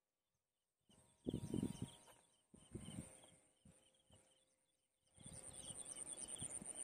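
Outdoor insect and bird ambience starting about a second in: a steady high-pitched insect buzz that pulses rapidly from about five seconds in, with short bird chirps repeating over it. A couple of louder low noises come near the start and about three seconds in.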